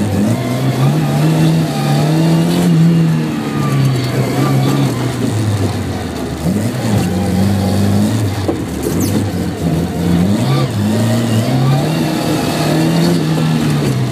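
Car engine heard from inside the cabin during a motorkhana run, revving hard and easing off, its pitch climbing and dropping every couple of seconds as the car accelerates and slows between turns.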